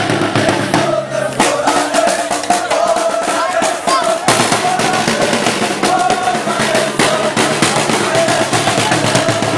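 Crowd of football ultras chanting together over fast beats on hand-held drums struck with sticks. The sound changes abruptly about four seconds in.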